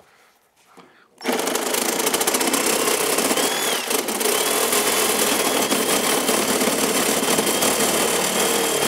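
Reciprocating saw starting up about a second in and then running steadily as it cuts, with a constant motor whine that dips briefly once.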